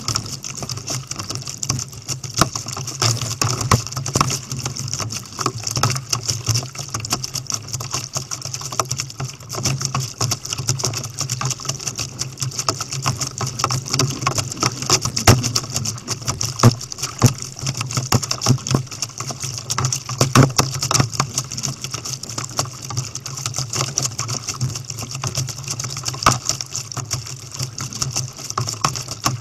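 Sea water slapping and splashing against a plastic sit-on-top kayak's hull as it is paddled, heard as a constant dense crackle of small knocks and clicks over a steady low hum.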